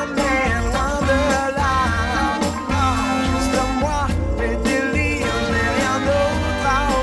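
Background pop song: a singing voice over bass and drums, playing without a break.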